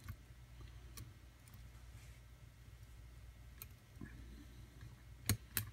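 Faint scattered clicks of a lock pick working the pins of a pin-tumbler challenge lock held under tension in a deep false set, with two sharper clicks near the end.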